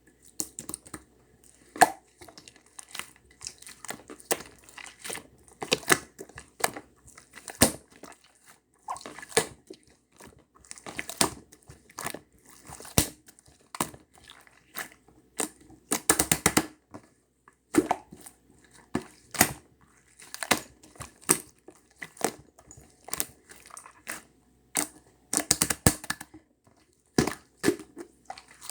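Irregular crinkling and crunching noises in quick clusters, close to the microphone.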